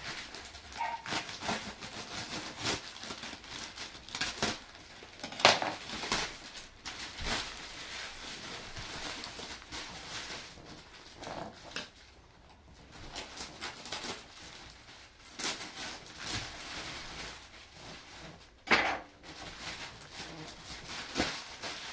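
Thin plastic wrapping around a freshly unrolled compressed mattress crinkling and rustling as it is handled. There are sharper crackles about five and a half and nineteen seconds in.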